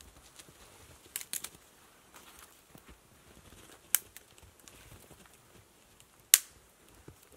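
Dry dead twigs being snapped off the lower trunk of a conifer by hand, giving sharp cracks: a quick few about a second in, one around four seconds, and the loudest near the end, with the rustle of branches and sticks in between.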